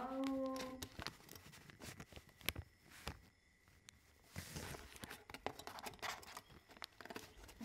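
Small items and packaging being handled on a tabletop: scattered light clicks and a crinkling rustle about four and a half seconds in, after a short held vocal sound at the very start.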